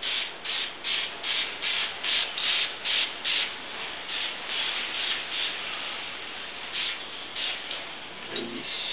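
Aerosol spray-paint can hissing in short bursts, about two a second, then a longer steady spray in the middle and a few more short bursts near the end.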